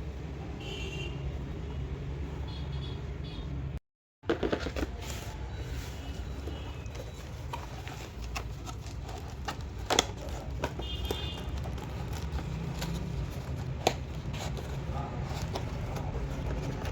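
A steady low background rumble with a few scattered sharp clicks, like small objects being handled.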